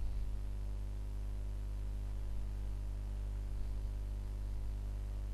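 Steady low hum with a faint hiss: background noise during a pause, with no speech or other events.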